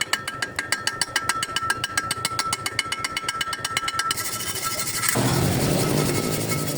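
Rapid metallic tapping, about nine strikes a second with a steady ringing tone behind it, giving way a little past four seconds in to a steady rushing noise.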